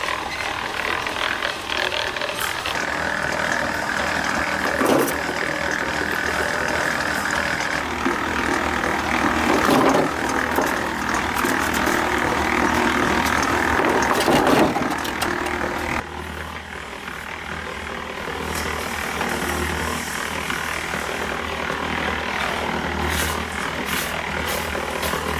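An engine running steadily, its sound changing suddenly about two-thirds of the way through to a lower, pulsing hum.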